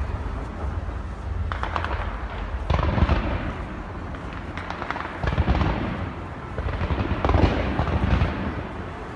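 Fireworks display going off: about four bursts in nine seconds, each a sudden boom, some trailed by crackling, over a constant low rumble.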